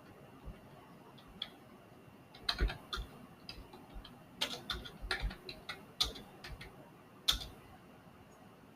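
Irregular clicking and tapping of a computer keyboard and mouse during editing work, a few scattered clicks at first, then a quicker run of keystrokes, the last one loud near the end.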